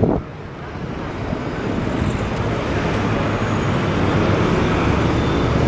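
Double-decker city bus engine running as the bus pulls round a corner and comes closer, growing steadily louder, amid street traffic.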